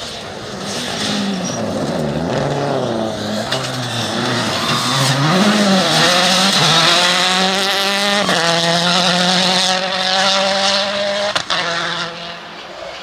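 Citroën C4 WRC rally car's turbocharged four-cylinder engine at full stage pace. The revs rise and fall for several seconds, then climb hard under acceleration, with an upshift about eight seconds in. The engine then holds high revs and fades near the end.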